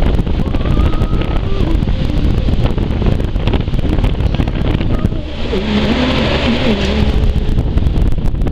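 Loud, rough rumbling noise with scattered crackles, and from about five seconds in a man singing in a song playing on a stereo.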